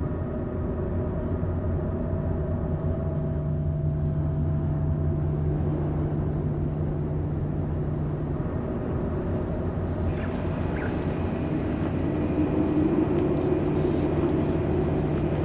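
A steady low rumbling drone with a few held tones under it, growing brighter and noisier after about ten seconds.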